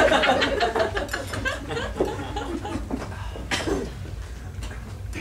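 Audience laughing, loudest at the start and dying down over the next few seconds.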